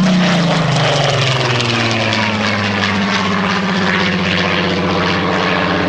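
Supermarine Spitfire Mk XVIII's Rolls-Royce Griffon V12 engine in a low fly-past, loud throughout: the engine note drops in pitch as it passes over in the first second or two, then holds a steady drone as the fighter banks and climbs away.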